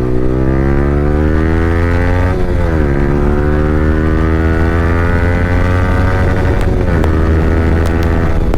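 Yamaha R15 V3's single-cylinder engine through an Akrapovic R9 exhaust with no dB killer, pulling hard with its pitch rising. The pitch drops sharply about two and a half seconds in and again about seven seconds in as the rider shifts up a gear, then climbs again.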